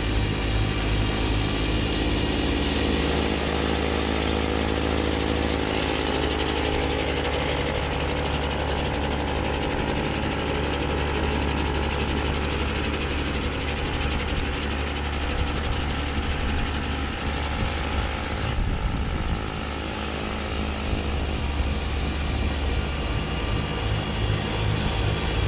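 Kubota B2601 compact tractor's three-cylinder diesel running steadily under load, driving a mid-PTO front snowblower whose auger and impeller are chewing through deep snow and throwing it from the chute.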